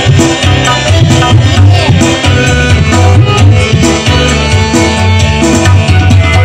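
Loud music with hand drums and heavy bass, played through a PA speaker cabinet with a woofer and a horn tweeter, driven by a home-built SOCL 504 power amplifier under test. The builder judges it free of the raspy distortion ("serak") he set out to cure.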